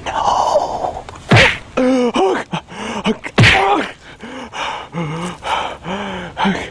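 A person gasping and groaning in a string of short, pitch-bending cries, with two sharp whacks, one about a second and a half in and one about three and a half seconds in.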